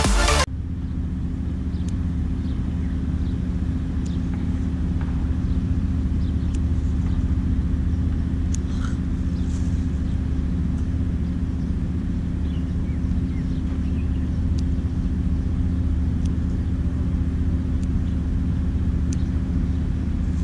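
A motor or engine running steadily with a low drone, faint scattered clicks over it; electronic background music cuts off about half a second in.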